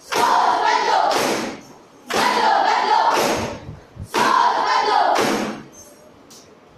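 A group of young voices shouting a line together in unison, three times, each call about a second and a half long with a short gap between.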